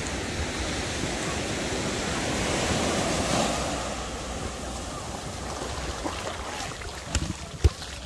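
Small waves washing up onto a sandy beach, the surf swelling about three seconds in and then easing off. Wind rumbles on the microphone, and a couple of sharp knocks come near the end.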